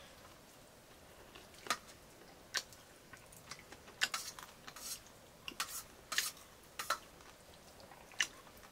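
Scattered light clicks and clinks of utensils against dishes, about ten separate taps spaced unevenly, several close together in the middle.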